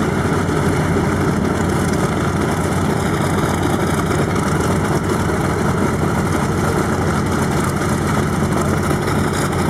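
The twin Pratt & Whitney R-2800 radial engines of a Grumman F7F Tigercat idling steadily after start-up.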